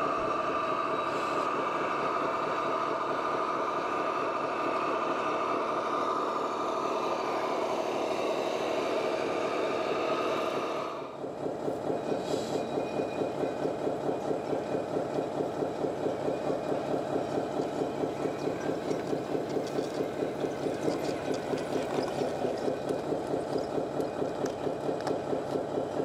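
Radio-controlled model trucks and construction machines running: a steady engine sound with a high whine, then, after a brief drop about eleven seconds in, a pulsing diesel-like idle at about three beats a second.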